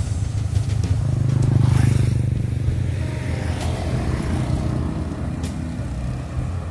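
Motorcycle engines running, with one swelling louder about a second and a half in and then fading as it passes.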